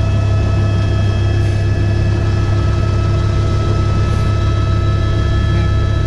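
Helicopter in flight heard from inside the cockpit: a loud, steady low drone with several constant whining tones above it.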